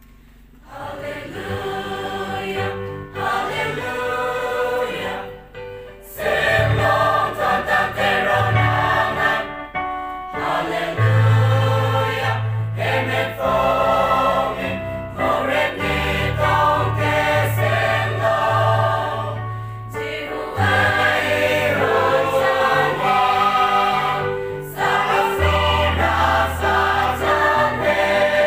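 Mixed church choir of men and women singing in parts, beginning about a second in, with sustained low bass notes underneath from about six seconds on.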